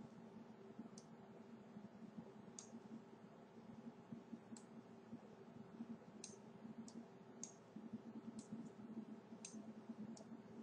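Faint computer mouse clicks, about ten at irregular intervals, over a low steady hum.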